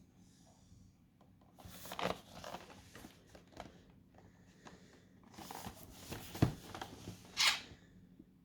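Hands handling a headphone retail box: irregular rustling and scraping of the packaging, with one sharp knock about six and a half seconds in.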